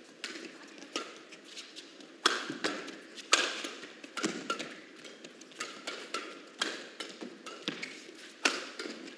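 Badminton rally: rackets striking the shuttlecock in a fast exchange, a sharp smack roughly every half-second to second. The hardest hits come a little over two and three seconds in.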